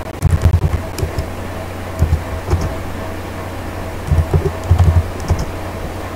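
Computer keyboard being typed on in short bursts of keystrokes, heard as dull thuds over a steady low hum.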